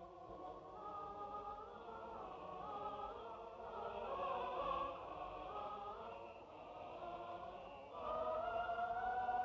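A choir singing slow, held chords. It swells about four seconds in, and a louder new chord enters near the end.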